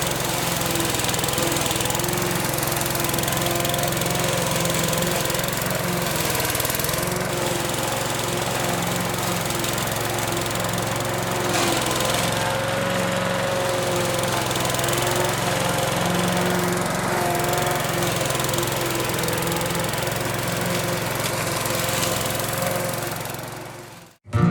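A 160cc petrol lawn mower engine running steadily under load while cutting tall grass. It fades out near the end.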